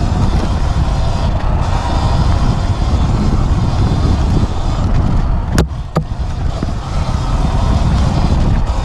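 Ride noise of a Sur Ron X electric dirt bike on a dirt singletrack, mostly low wind rumble on the helmet-mounted microphone over tyre and chassis rattle. Two sharp knocks, about a third of a second apart, a little past halfway through.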